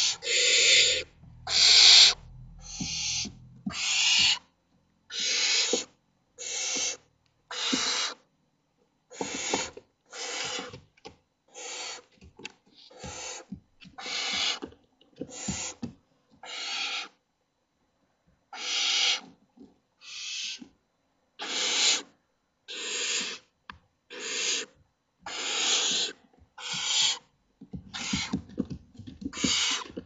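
Barn owl nestlings giving a long series of rasping hiss calls, each about half a second to a second long and coming roughly once a second: the begging 'snoring' of owlets asking for food. A low rumble of movement sits under the first few calls.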